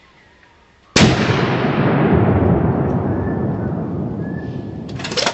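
A single rifle shot about a second in, fired at a wild boar. A long wash of noise follows it and fades slowly over about four seconds, and a brief burst of noise comes near the end.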